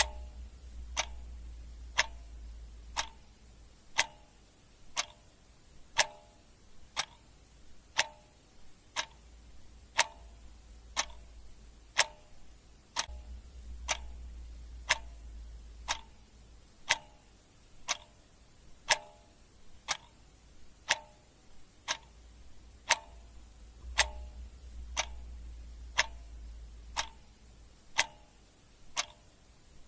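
Clock ticking steadily, about once a second, some ticks with a short ringing tone. A faint low hum swells in and out underneath.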